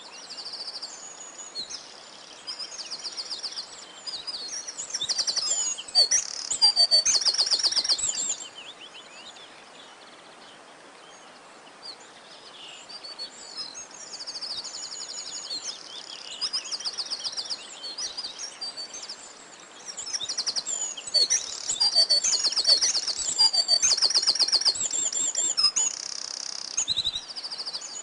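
Several songbirds singing together, with rapid trills and high chirps overlapping; the song is loudest about six to eight seconds in and again in the last third, with a quieter lull in between.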